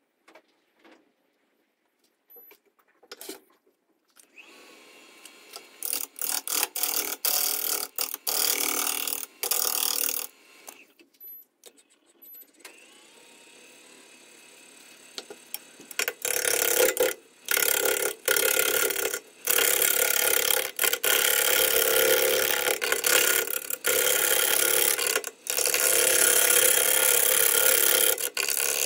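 Gouge cutting a spinning eucalyptus burl bowl blank on a wood lathe. Near silence at first, then short bursts of noise from about six seconds in. Near the halfway point it turns into loud, almost continuous cutting with brief gaps.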